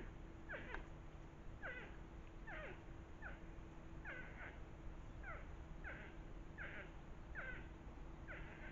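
An animal calling over and over: short, high calls, each sliding steeply downward, about three every two seconds. The uploader wonders whether it is a bull moose calling.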